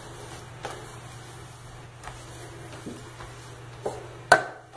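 A microfibre window cloth wiping a chrome bathroom faucet and sink, heard as faint rubbing and small knocks over a steady low hum. A sharp knock comes a little over four seconds in.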